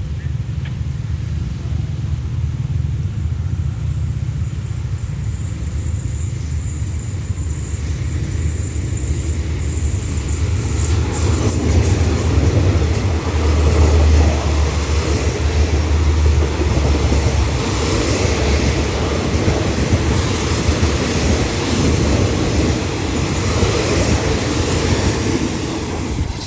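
Hitachi diesel-electric locomotive hauling a passenger train, its deep engine rumble swelling as it draws close and passes about halfway through, with the clatter of the wheels on the rails.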